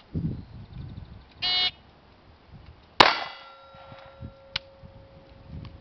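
Shot timer's start beep, then about a second and a half later a single pistol shot, followed by a steel target plate ringing on for a couple of seconds.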